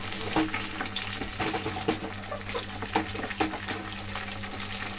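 Beaten egg sizzling and crackling in hot mustard oil in a karahi: a steady hiss dotted with many small pops.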